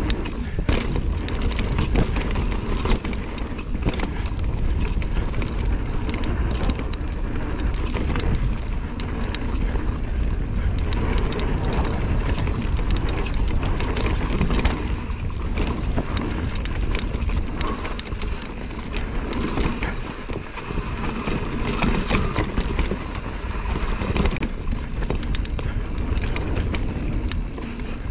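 Mountain bike riding fast down a dirt trail: a steady rush of wind on the microphone and tyre noise, with frequent sharp knocks and rattles of the bike over the rough ground.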